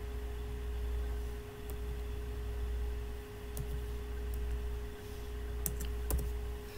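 Steady low electrical hum with a faint constant tone above it, swelling and dipping every second or so. A few faint clicks come near the end.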